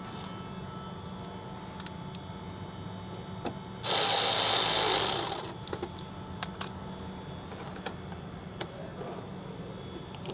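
Small clicks and taps of screws and plastic parts being fitted to a truck fender. About four seconds in comes one loud hissing burst lasting about a second and a half.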